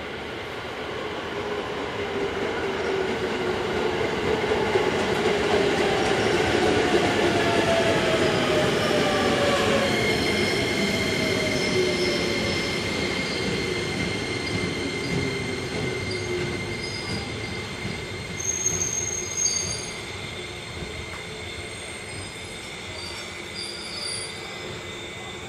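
JR Musashino Line electric commuter train braking into the station. Its running whine falls steadily in pitch as it slows. From about halfway through, a high steady squeal sets in and holds while the train rolls slowly along the platform, fading as it comes to a stop.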